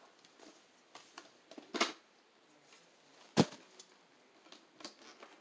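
Trading card packaging being handled: scattered light clicks and taps, with one sharper knock about three and a half seconds in.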